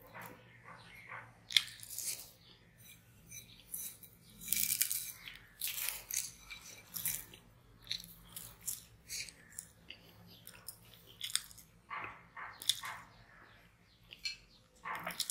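Close-up mouth sounds of a person eating porota with honey by hand: irregular chewing, smacking and finger-licking, with sharp clicks scattered through.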